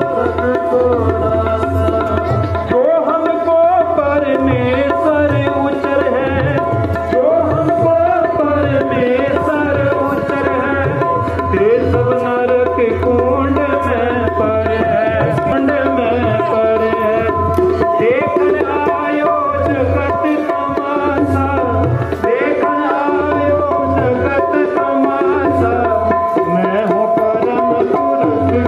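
Sikh kirtan played live: tabla keeping a steady beat under held harmonium notes, with a singer's voice rising and falling in pitch over them.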